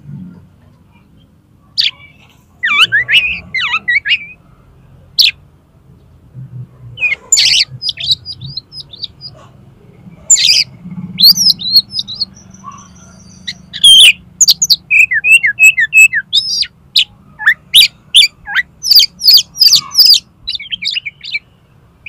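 Oriental magpie-robin (kacer) singing the erratic 'konslet' song: loud, sharp whistles and chirps in quick, varied bursts. It starts a couple of seconds in and turns into a fast run of piercing notes near the end.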